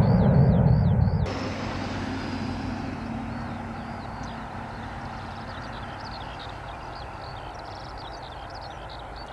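Airliner engines rumbling loudly. The loud part cuts off abruptly about a second in, and a fainter engine rumble then slowly fades away.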